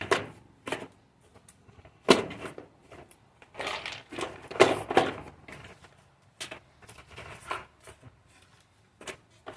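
Rummaging through a box of parts: packaging rustling and small parts knocking, in irregular bursts with short pauses.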